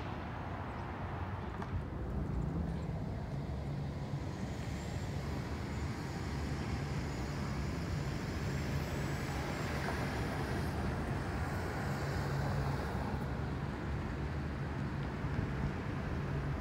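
Road traffic passing near a railroad grade crossing, over a steady low engine hum.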